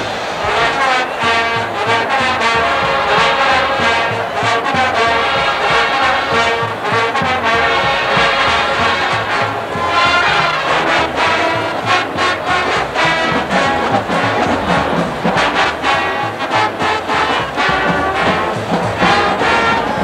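Marching band playing big-band swing music, with the brass section, trombones and trumpets to the fore, on a rhythmic beat.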